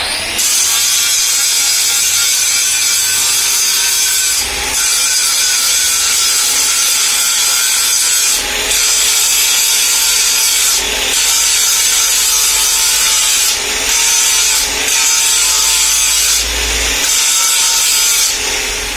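Power tool cutting, running loud and steady in long passes broken by several brief pauses.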